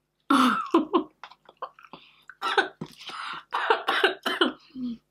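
A woman coughing in a run of short, repeated coughs with some throat clearing, while eating a mouthful of food.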